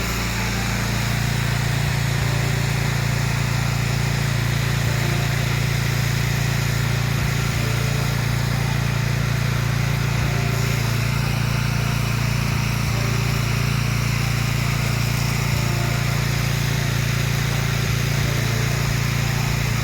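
Gas-engine pressure washer running steadily under load, with the hiss of water spraying from the wand as a downstream soap mix is applied.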